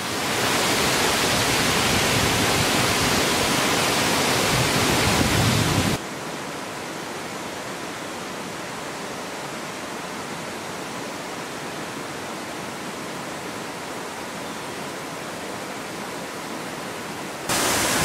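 Waterfall rushing, a steady even noise of falling water. About six seconds in it cuts abruptly to a quieter, equally steady rush of water. Near the end it jumps louder again.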